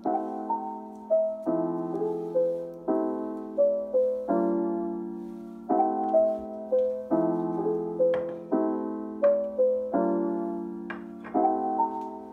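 Background piano music: a slow, gentle tune, with a new chord about every one and a half seconds under a simple stepping melody.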